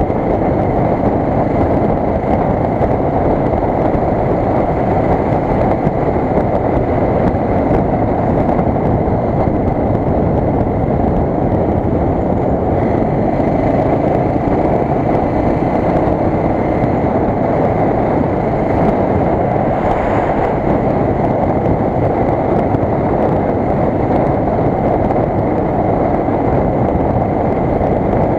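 Suzuki DR 600's single-cylinder four-stroke engine running steadily at cruising speed on the road, mixed with wind noise on the bike-mounted camera's microphone.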